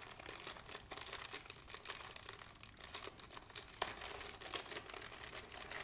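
Handling noise from a small coin purse being turned over in the hands: dense crinkling and rustling with many small irregular clicks.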